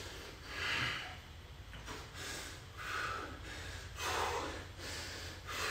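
A man breathing hard from the exertion of holding a plank: a noisy breath roughly every second.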